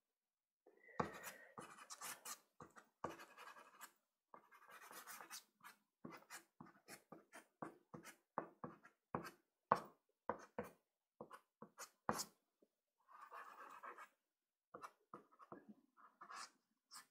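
Soft pastel stick scratching across Pastelmat card: many short, quick strokes and taps with a few longer scrubbing passes, faint throughout.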